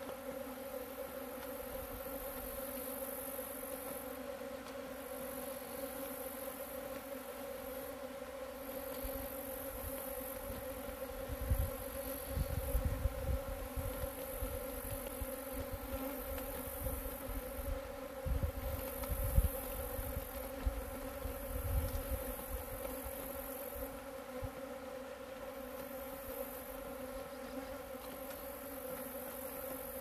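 Steady hum of many leafcutter bees buzzing over flowering alfalfa, with a high, pulsing insect trill above it. Low rumbling bumps of wind on the microphone come and go through the middle and are the loudest moments.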